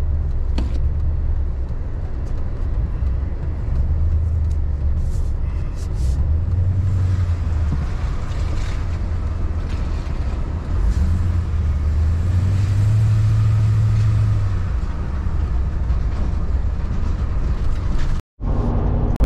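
Truck engine and road noise heard from inside the cab as it drives off at low speed, a steady low rumble whose engine note rises twice as it accelerates.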